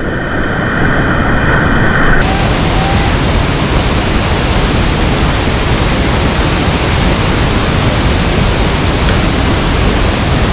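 Whitewater rapids rushing in a loud, steady wash. It sounds muffled at first and turns suddenly brighter about two seconds in.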